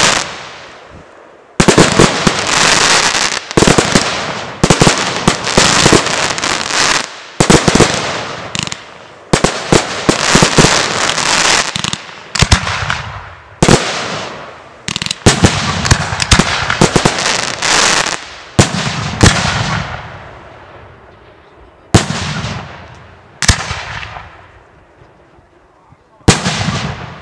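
Fireworks display: aerial shells bursting in quick volleys with crackling between the bangs. The volleys thin out to a few single bangs near the end.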